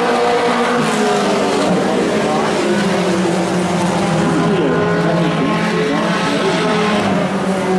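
Race truck engines running hard in a pack, several engine notes overlapping at once. A few notes sweep up and down in pitch around the middle as trucks pass.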